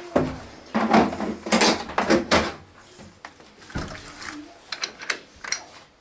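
Knocks and scraping from a front-loading washing machine being handled into place on a tiled floor. The loudest are in the first half. A few lighter, sharp clicks follow.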